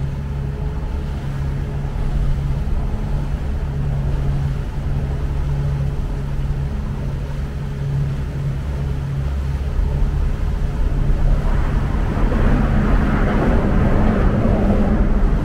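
A small motorboat's outboard motor running steadily under way, with a constant low engine hum. About twelve seconds in, a louder rushing noise builds over it.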